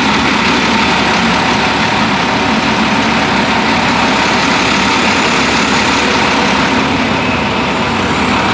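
Engine noise, loud and steady, with a faint constant whine.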